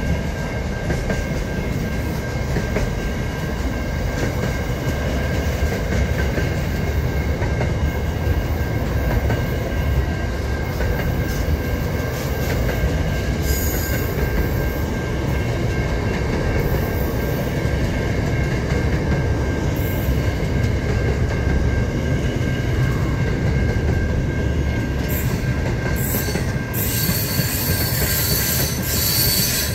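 Freight train passing close by: a steady rumble of wagons rolling over the rails with a thin, steady squeal from the wheels. Sharper high-pitched bursts come briefly about halfway and again through the last few seconds.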